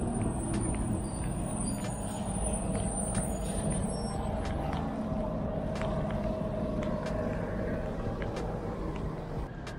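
Street traffic: cars and trucks driving past, an even rumble of engine and tyre noise, with a steady hum from one vehicle through the middle few seconds.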